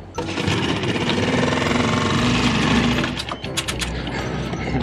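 Small Mercury outboard motor running steadily on an inflatable dinghy just after being pull-started, its note shifting slightly as the dinghy gets under way.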